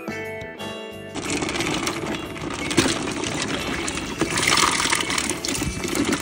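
Short plucked-string music ends about a second in, giving way to water splashing and bubbling in a cooler holding live ayu.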